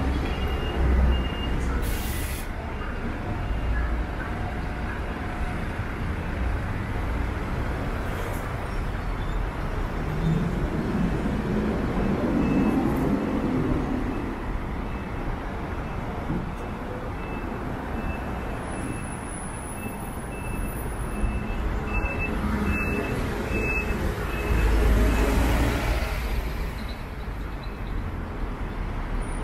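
City street traffic: buses and cars running past with a steady engine rumble and tyre noise, a short hiss about two seconds in, and a louder vehicle passing near the end.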